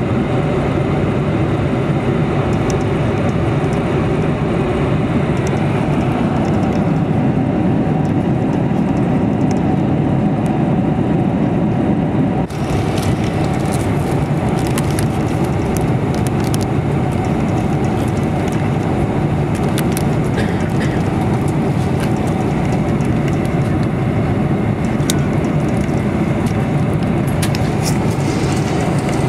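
Steady cabin noise of a Boeing 747-400 in cruise: the even rumble and rush of engines and airflow heard from a passenger seat. About twelve seconds in it dips briefly, and light clicks and rustles follow.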